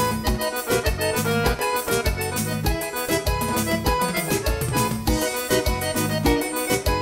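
Instrumental forró intro: a keyboard on an accordion voice plays the melody over strummed acoustic guitar, with a steady low beat about twice a second.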